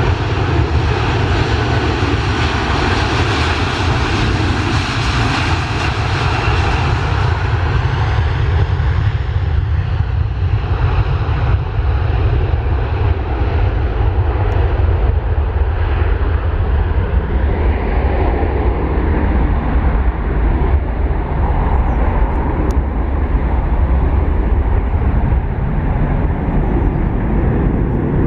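Airbus A330 airliner's twin jet engines at take-off power during the take-off roll: a steady loud roar with a heavy low rumble. Its high hiss fades about ten seconds in as the aircraft draws away down the runway.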